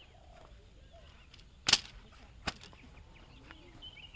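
Two sharp clacks about a second apart, the first much louder, from camping gear being handled while a tent is taken down.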